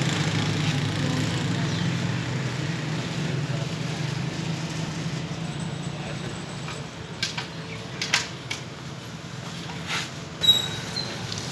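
Street ambience with a steady low engine hum that fades after about six seconds, then a handful of sharp clicks and knocks, the loudest near the end.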